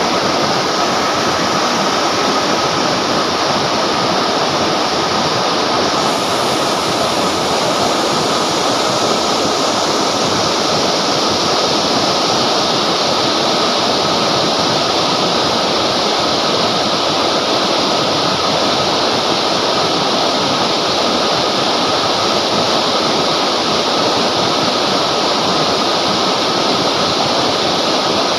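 River water rushing and splashing in a loud, steady, even rush with no breaks.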